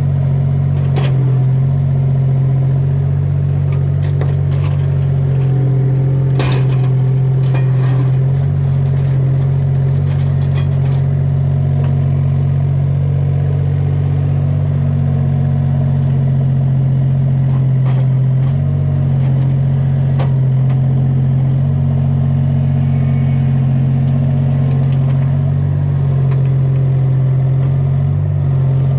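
Excavator's diesel engine running steadily, with occasional sharp knocks and clatter.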